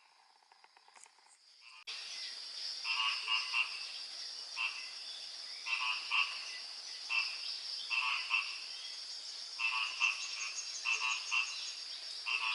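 Frogs croaking in repeated short clusters of rapid pulses, over a steady high-pitched insect drone. The sound starts abruptly about two seconds in.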